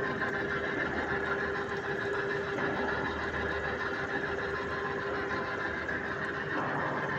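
Pipe threading machine turning a 2-inch galvanized iron pipe while its cutter cuts through the pipe: a steady metal-on-metal whine with several held tones over the motor's running noise.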